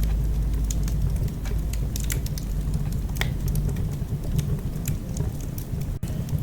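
Wood-burning fireplace crackling: scattered sharp pops and snaps of burning logs over a steady low rumble of flame, with one stronger pop about three seconds in.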